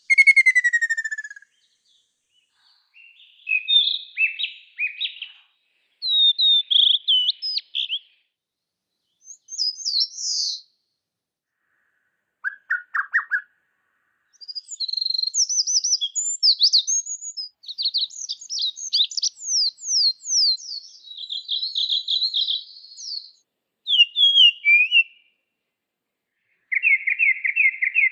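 Wild songbird song: a run of short, varied phrases of whistles, quick chatter and trills, separated by pauses of one or two seconds. It opens with a falling whistle, has a lower phrase about twelve seconds in, and ends with a fast trill.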